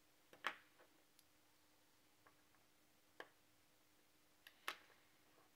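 A few small, sharp, irregular clicks from handling the watch movement and its calendar parts at the bench, the loudest about half a second in and another near the end, over near silence with a faint steady hum.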